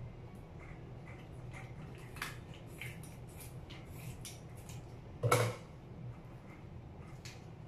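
Kitchen scissors snipping the fins off a whole red snapper: a scatter of short clicks and snips, with one louder clatter about five seconds in, over a steady low hum.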